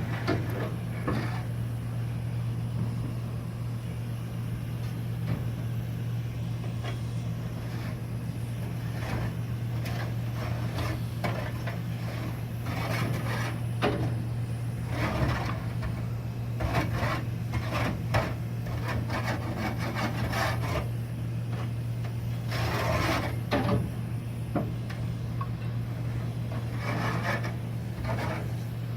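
Evaporator coil cleaner being sprayed into a rooftop AC unit's coil in short hissing bursts, the strongest about 22 to 24 seconds in. Scraping and rubbing handling noises run through it, over a steady low hum.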